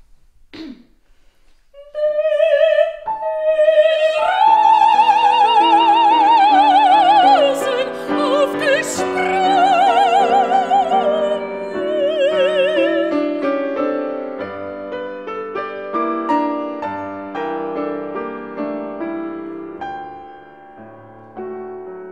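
Female classical singer singing an art song with wide vibrato, accompanied by a grand piano. The voice enters about two seconds in, the piano joins soon after, and from about 13 s on the piano plays alone.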